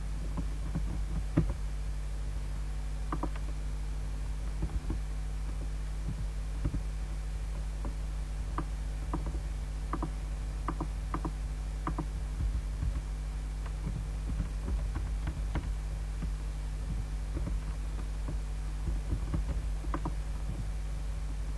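Steady low electrical hum, with irregular short soft clicks scattered through.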